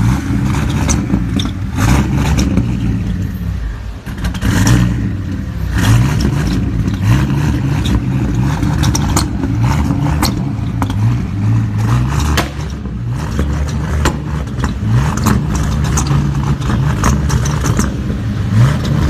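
Performance car engine revving up and falling back again and again, with many sharp exhaust pops and cracks through it.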